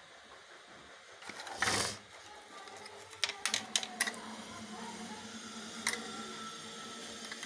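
Handling noise: a brief rustle, then a quick run of sharp clicks and one more click a couple of seconds later, over a faint low steady hum.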